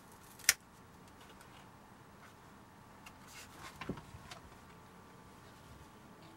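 Boxes of soft pastels being handled: one sharp click about half a second in, then a few soft knocks and rustles around four seconds in, over faint room tone.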